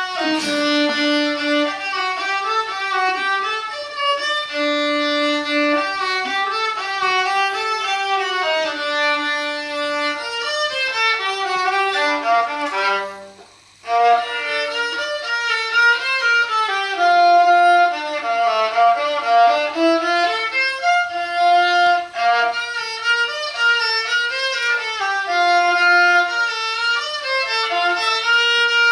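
A child playing a solo melody on the violin, bowing a line of held notes that step up and down, with a short break about halfway through before the tune resumes.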